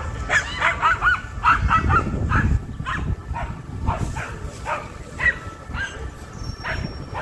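A dog yipping and barking in a rapid series of short, high-pitched calls, dense at first and thinning out after a few seconds.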